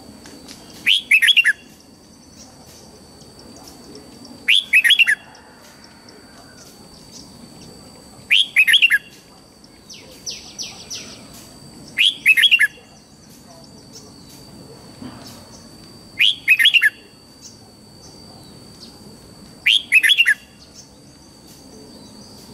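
Red-whiskered bulbul singing its morning song: a short, loud phrase of a few rising-and-falling whistled notes, repeated six times at about four-second intervals. A brief, fainter rapid chatter comes between the third and fourth phrases.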